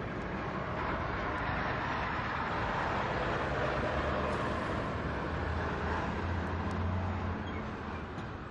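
Steady rushing hiss over a low hum: fuel flowing from a pump nozzle into a car's tank, with the dispenser's pump motor running.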